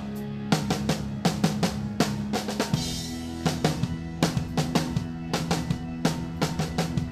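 Live progressive metal drum kit played hard, with quick kick, snare and tom hits over the band's sustained low chords. The chord changes about three seconds in, with a brief cymbal wash.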